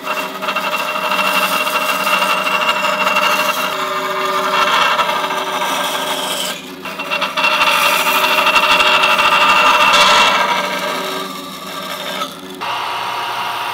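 Band saw running and cutting through a block of wood, the cutting noise rising and falling with two short dips. Near the end it gives way to a steadier, quieter machine hum.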